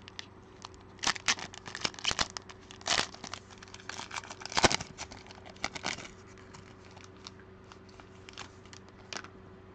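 Plastic wrapping on trading-card packaging being torn and crumpled: a dense run of irregular crinkles for the first several seconds, then only a few scattered crackles.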